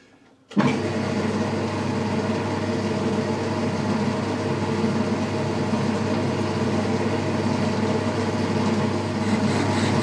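Boxford metal lathe switched on about half a second in, its motor and drive spinning the four-jaw chuck up at once and then running steadily.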